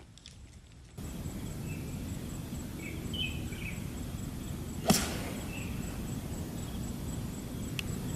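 A golf iron (an 8-iron) strikes the ball off the tee once, a sharp crisp click about five seconds in, over steady outdoor background noise.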